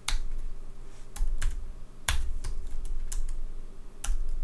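Computer keyboard keystrokes: a dozen or so separate key presses, unevenly spaced, as text is edited line by line.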